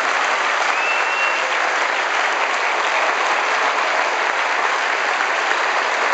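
Theatre audience applauding steadily after a song, many hands clapping at once in a dense, even wash.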